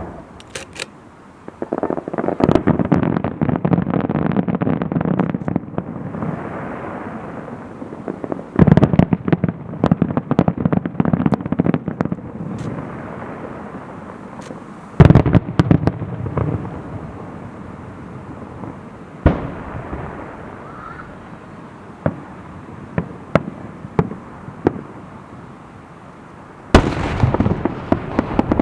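Aerial fireworks shells bursting about five times, each heavy bang followed by several seconds of dense crackling, with scattered single pops between the bursts.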